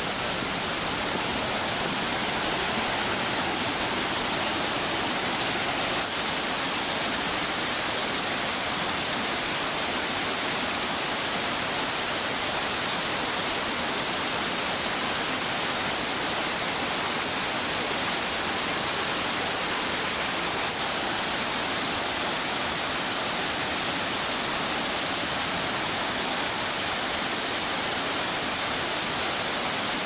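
Mountain waterfall, white water cascading down over boulders in a steady, unbroken rush.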